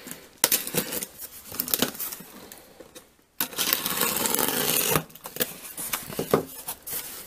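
A box and its packaging being opened and handled by hand: scattered clicks and light knocks, with a continuous rustle lasting about a second and a half near the middle.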